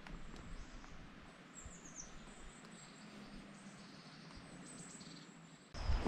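Faint, high bird chirps over a quiet outdoor hiss, with a few short descending chirps about two seconds in. Near the end a much louder rush of noise cuts in abruptly.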